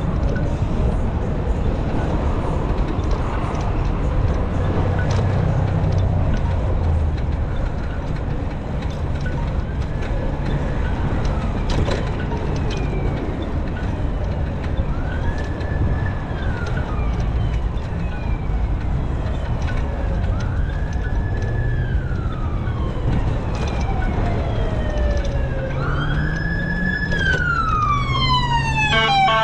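An emergency vehicle's siren wailing, its pitch rising and falling about every five or six seconds, growing louder from about a third of the way in and ending in a loud falling sweep. Under it runs a steady low rush of wind on the microphone from the moving bike.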